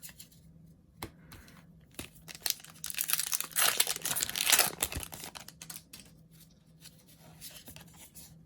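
Foil wrapper of a Pokémon booster pack crinkling and tearing open. It starts with a few light crackles, then comes a dense stretch of tearing and crinkling for about two seconds in the middle, and a few softer crinkles follow.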